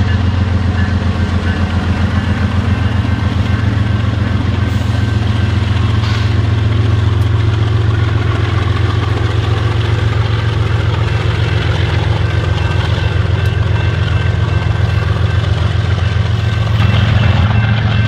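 BNSF diesel-electric freight locomotives passing close by at a grade crossing, their engines running with a deep, evenly pulsing drone that grows louder near the end as a trailing unit passes. A crossing signal bell rings steadily underneath.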